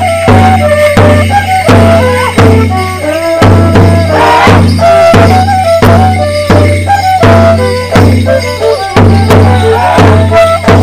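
Folk dance band playing a Border Morris tune, a fiddle close by carrying the melody over a steady low note, with sharp percussive beats about twice a second.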